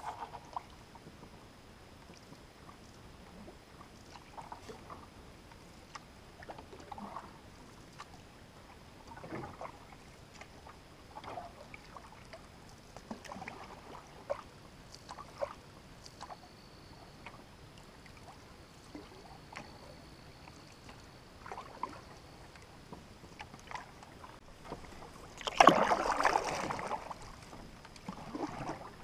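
Canoe paddle strokes on calm water: quiet dips, drips and trickles every second or two, with one louder stroke near the end.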